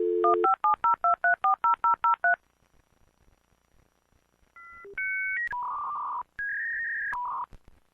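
Touch-tone telephone: a dial tone cut off by a quick string of about eleven keypad tones as a number is dialed. After a pause of about two seconds, a run of electronic tones steps between a few pitches.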